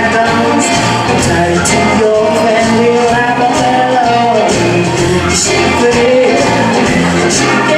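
Live blues band playing: electric guitar, bass guitar, drum kit and electric keyboard, with a woman singing into a microphone over them.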